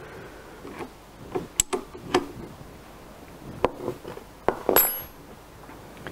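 Steel open-ended spanners clicking and clinking against the adjustment nuts on a lathe leadscrew's thrust bearing as they are nipped up to take out backlash: several sharp metallic clicks, with a louder ringing clink about five seconds in.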